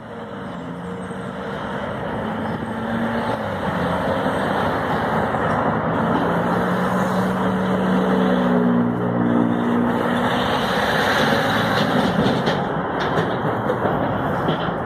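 Street traffic at an intersection: passing cars and pickup trucks, a steady mix of engine hum and tyre noise that fades in over the first few seconds. A city transit bus approaches near the end.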